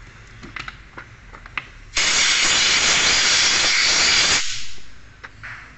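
Compressed-air blow gun giving one burst of about two and a half seconds, a loud even hiss that starts abruptly and tails off, blowing a power steering pump part clean. A few light metal clicks of parts being handled come before and after it.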